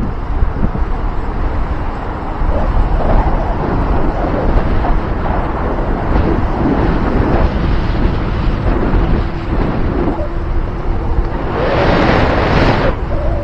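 Heavy wind buffeting on the microphone while travelling along a highway, over rumbling vehicle and road noise. A louder rushing swell comes near the end.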